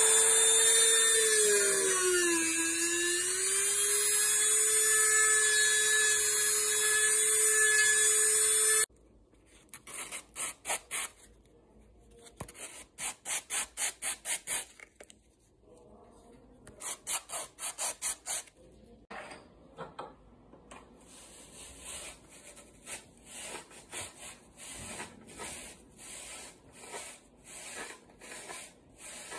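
Handheld rotary tool with a small burr grinding into a cane ney tube: a steady high whine that dips in pitch around two seconds in as the burr bites, then stops suddenly about nine seconds in. After it come much quieter runs of short rubbing strokes, and near the end faint repeated rubbing as a cord swab is drawn through the bore.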